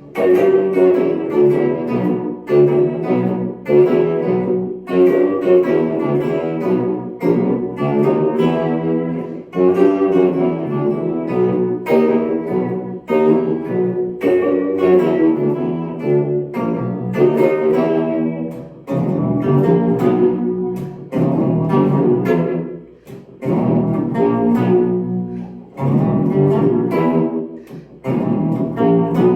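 Guitar played through an Electro-Harmonix Pitchfork pitch-shifter pedal set about three octaves down, so the chords and phrases sound low, like a bass or cello. The playing comes in short phrases with brief gaps between them.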